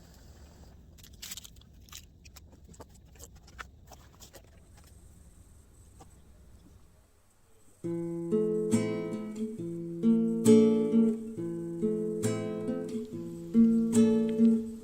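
Faint outdoor background noise with a few scattered clicks, then strummed acoustic guitar music that starts suddenly about eight seconds in and is much louder, its chords struck roughly once a second.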